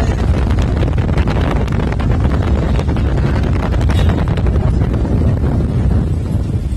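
Wind buffeting the microphone: a loud, steady low rumble with crackling, easing slightly near the end.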